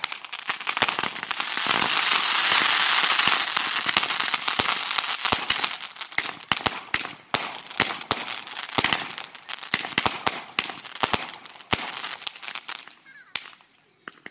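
Fireworks crackling and popping: a dense, continuous crackle from bursting crackling stars is loudest in the first few seconds. It then breaks into scattered pops and bangs that thin out and die away near the end.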